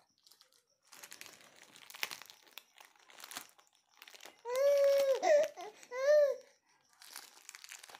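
Plastic biscuit wrapper crinkling as a baby handles the packet. A little past halfway the baby gives two short high-pitched vocal sounds, one held and falling away, the other a brief rise and fall.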